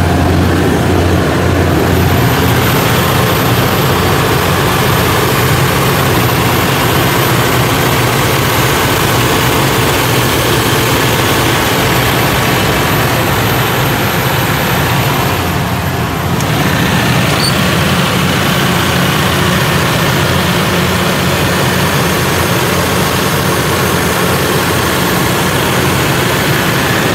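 Multiquip DCA150 portable diesel generator set running steadily under a load test, heard close up at the engine. The sound dips briefly about sixteen seconds in.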